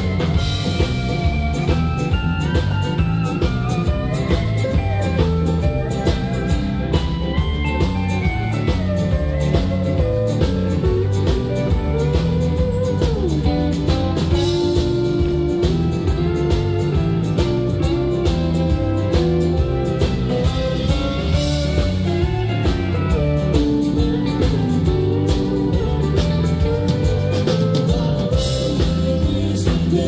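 Live country band playing an instrumental passage: electric guitar and pedal steel guitar over electric bass and a drum kit keeping a steady beat.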